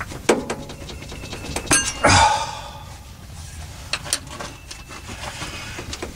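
Metal pry tool clicking and scraping against a Toyota Tundra's rear transmission seal as it is hooked and pulled, with a louder, longer scrape about two seconds in. The seal is stuck and won't come free.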